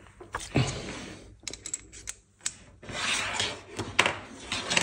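Wrench on a stainless-steel brake-hose fitting: a few sharp metallic clicks as it is set on and handled, and a stretch of scraping and rubbing about three seconds in as the fitting is loosened.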